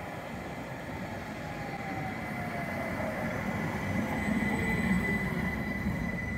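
Tatra KTNF6 articulated tram approaching and passing close by on the track, its running noise growing loudest as it goes past about four to five seconds in. A whine falls in pitch as it nears, over a thin steady high tone.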